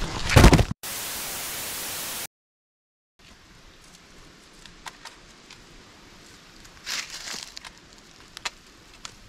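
The tail of a loud crash-like burst, then about a second and a half of steady static hiss that cuts off to dead silence. After that comes faint outdoor quiet with light rustles and small twig cracks as a child climbs across a two-log bridge over a creek.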